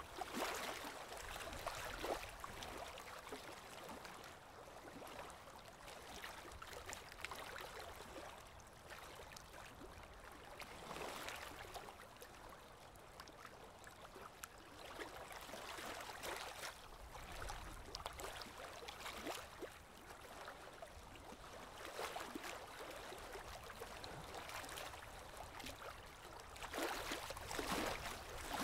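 Small waves on Lake Erie washing in at the shore, a soft wash that swells and eases every few seconds.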